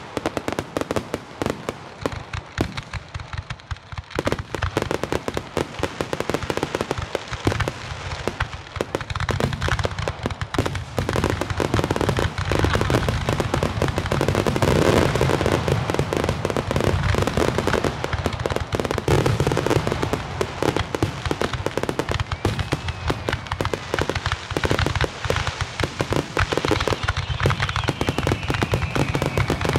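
Fireworks finale: a dense barrage of shell bursts and crackling reports, thinning briefly a couple of seconds in and then building to a near-continuous rattle. A whistle glides down in pitch near the end.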